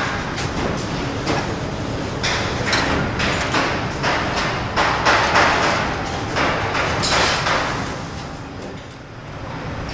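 Metal factory ambience: a steady low rumble of machinery with frequent knocks and clanks, and three longer bursts of hissing noise, the loudest about halfway through.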